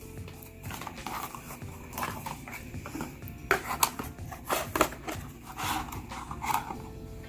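Quiet background music with rustling and a few sharp clicks from phone packaging being handled during an unboxing.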